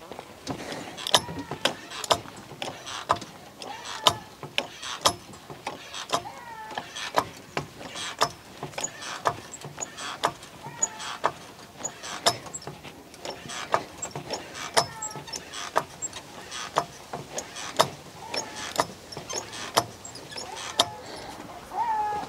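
Hydraulic trolley jack being pumped by hand to raise a car: a sharp metallic click with each stroke of the handle, about once a second, with short squeaks between strokes.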